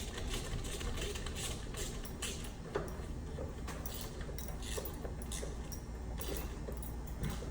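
Irregular clicks and taps of hand tools and metal parts as wires are landed and tightened on a breaker, over a steady low hum.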